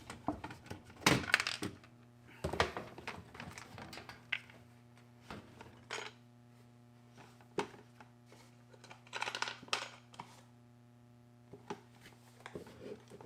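Irregular knocks, clicks and short clatters of tools and metal parts being handled during washer reassembly, a couple of louder clattering bursts about a second in and near the ten-second mark, over a steady low hum.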